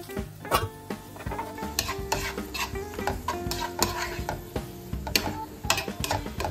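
A spatula stirring and scraping chopped broccoli around a nonstick frying pan in irregular strokes, with food sizzling after water is poured into the hot pan.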